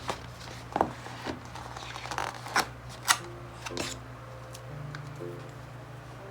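Paper and sticker craft-handling noises: a handful of sharp, crisp clicks and rustles in the first four seconds, the loudest about three seconds in.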